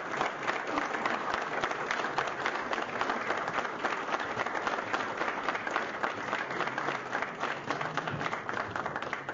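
A large audience applauding, a dense steady patter of many hands clapping that cuts off abruptly at the end.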